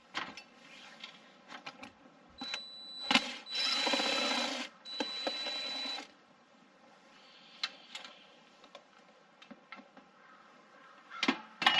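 A power drill-driver runs in two spells of about two seconds and one second with a steady high whine, backing out the screws of an old light fixture. Sharp clicks and knocks of handling the fixture come before and after, with a cluster near the end.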